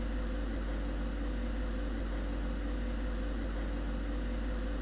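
A steady low electrical hum with hiss, joined by a faint constant tone, unchanging throughout: the recording's background noise.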